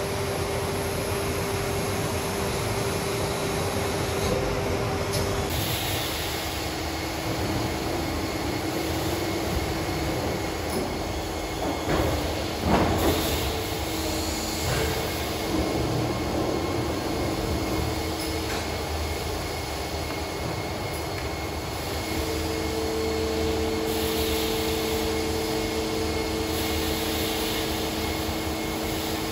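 Large KraussMaffei injection moulding machine running: a steady mechanical din with a humming whine whose pitch shifts a few times as the machine moves through its cycle. A short, louder clatter comes about twelve seconds in.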